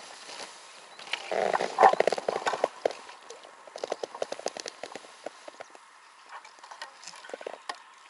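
Water splashing with irregular knocks and clatters as a person pushes an inflatable fishing raft off gravel shallows and climbs into it; loudest and busiest about one to three seconds in, then scattered smaller knocks and splashes.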